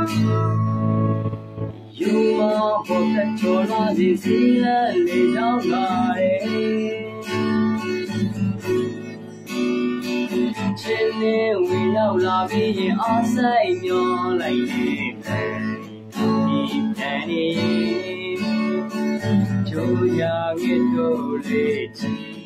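Acoustic guitar strummed as accompaniment to a man singing a slow song, with a short lull about two seconds in before the strumming and singing resume.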